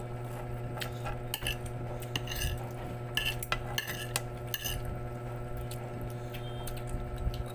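Metal fork and spoon clinking and scraping against a plate of rice as food is scooped up, a string of short, sharp clinks mostly in the middle stretch, over a steady low hum.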